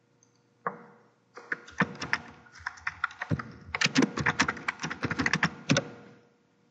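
A computer keyboard being typed on: one click, then a quick run of about twenty keystrokes spelling out a short entry, the words "Nephrology Referral", stopping about a second before the end.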